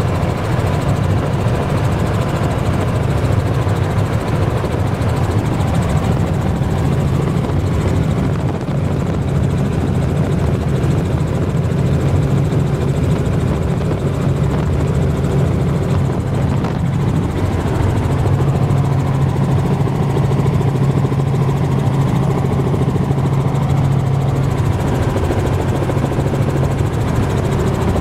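Helicopter in flight heard from inside the cabin: a loud, steady drone of engine and rotor with a constant low hum.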